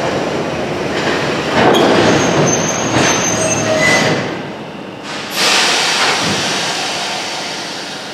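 London Underground battery-electric locomotive and its flat wagons rolling slowly past on the rails: a steady rumble of wheels on track with several louder surges and brief, high-pitched wheel squeals in the middle, growing quieter towards the end.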